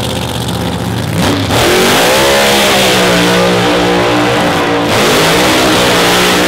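Pro Modified drag-racing car engines running loud at high revs. The pitch climbs about a second and a half in, holds, and dips briefly near the end.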